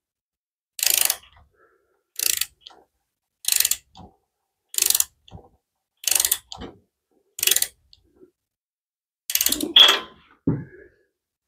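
Ratchet wrench clicking in short runs of rapid clicks, seven in all about every second and a quarter, as it turns a spark plug into the cylinder head of a Briggs & Stratton OHV engine. The plug is hard to turn, which the mechanic takes for cross-threading.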